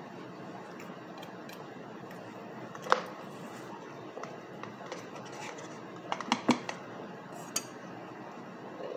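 Sharp clicks and taps as a plastic cornstarch jar and a straw are handled, over a steady hiss. The loudest click comes about three seconds in and a quick cluster of four or five comes around six seconds.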